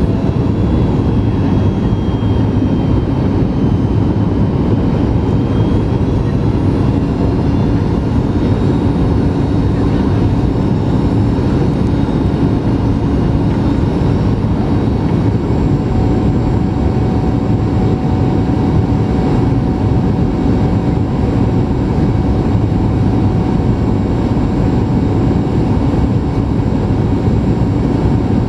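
Steady cabin noise of a Boeing 737 MAX 8 on final approach, heard from a window seat by the wing: a deep rush of airflow and the CFM LEAP-1B engines' drone, with a faint steady whine above it.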